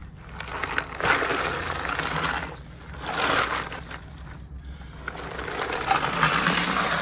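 Water and a load of 9mm brass casings, with stainless steel tumbling media, pouring from a rotary tumbler drum into a stainless mesh strainer: a splashing, metallic rattle that comes in three surges as the drum is tipped.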